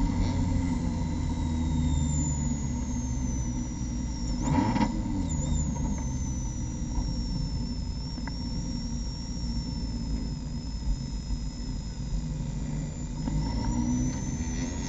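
Mazda MX-5 Cup race car heard from inside the cockpit, its engine running at low revs while the car rolls slowly. A high whine falls in pitch as the car slows and rises again near the end as it picks up speed, with a brief louder noise about four and a half seconds in.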